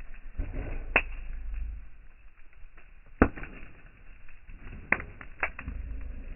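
Wood crackling in a campfire, with four sharp pops spread over a few seconds over a low rumble.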